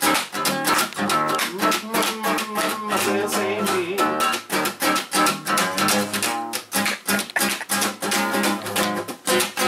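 Acoustic guitar strummed in a quick, steady rhythm, several strokes a second, ringing chords that change as it goes.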